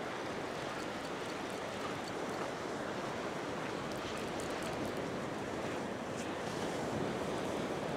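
Surf breaking and washing up a sandy beach, a steady rush of noise.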